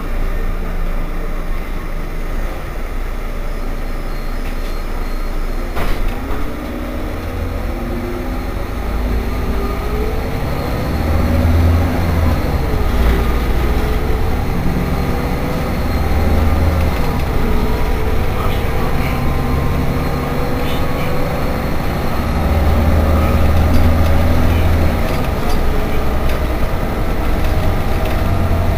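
Irisbus Citelis 12 city bus running under way: a steady low engine rumble with a drivetrain whine that climbs in pitch and drops back several times. There is a single sharp click about six seconds in.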